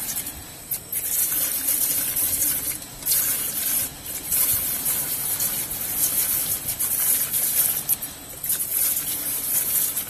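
Steady rushing, gushing noise as a tilting quenching furnace discharges its hot screws into the quench tank below, with flames flaring at the discharge opening.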